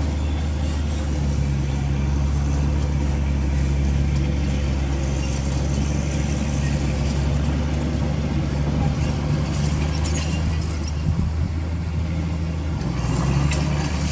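Komatsu D85 crawler bulldozer's diesel engine running steadily with a low drone as the machine travels, with a few clanks near the end.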